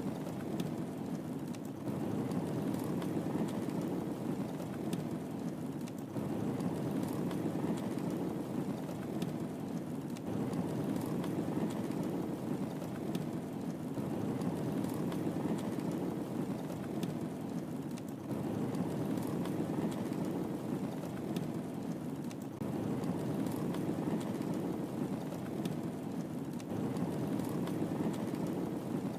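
Wood fire crackling in a fireplace: a steady low rush of flame with scattered small sharp pops and crackles.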